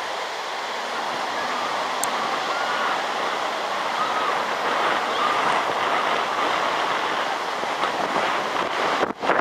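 Ocean surf washing onto a beach: a steady rushing that slowly swells. About nine seconds in, wind buffets the microphone.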